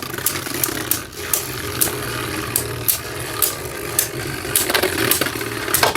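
Two launched Beyblade spinning tops whirring in a stadium, with irregular sharp clacks as they collide, and a louder clack near the end.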